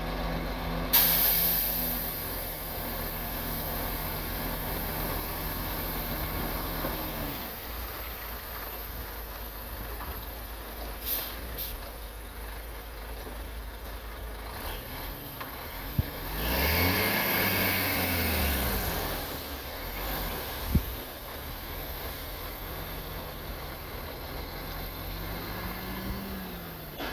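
Heavy diesel engine of earthmoving machinery running steadily, then revving up and easing back down about two-thirds of the way through, with a few sharp knocks.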